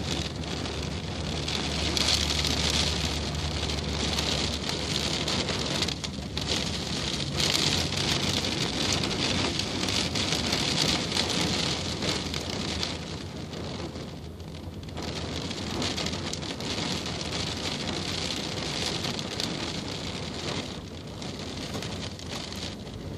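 Rain falling on a vehicle's roof and windows, heard from inside, a dense hiss that is heaviest in the first half and eases somewhat after that, with a low steady hum underneath.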